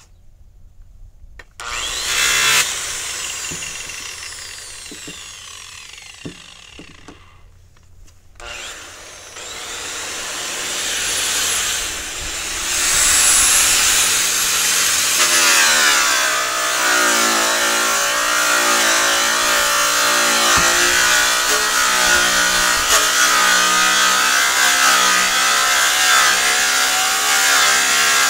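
Handheld angle grinder with a polishing pad buffing a semi-trailer's aluminium panel. The motor starts about two seconds in, winds down and stops, then starts again and runs steadily, its pitch dropping as the pad is pressed against the metal.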